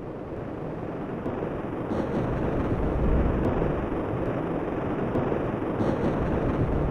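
Sci-fi spaceship engine sound effect: a steady low rumble that grows louder over the first two seconds and then holds.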